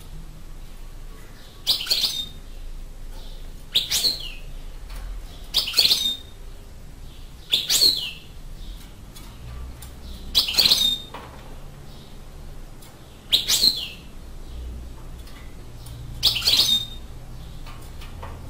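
European goldfinch, a freshly caught wild bird in a cage, giving short chirping calls, seven in all, about every two to three seconds.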